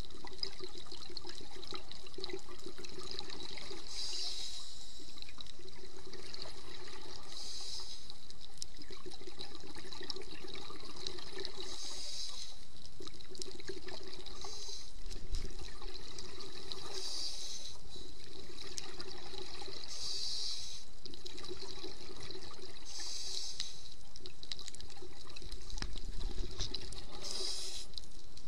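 Scuba diver breathing through a regulator underwater: a hiss recurs about every three to four seconds over steady bubbling water noise.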